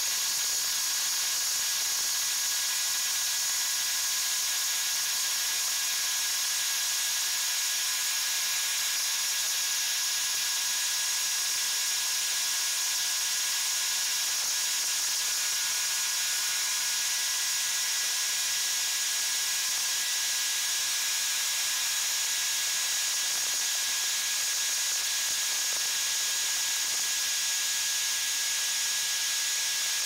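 Oats pouring from the fill auger into the grain tank of a John Deere T670i combine harvester: a steady hiss of falling grain, with a steady high whine from the running machinery.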